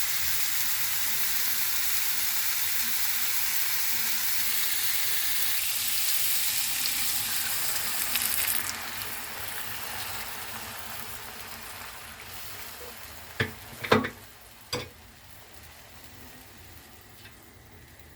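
Food frying in hot oil in a pan, a steady sizzle that dies away after about eight or nine seconds. A few sharp knocks follow near the end.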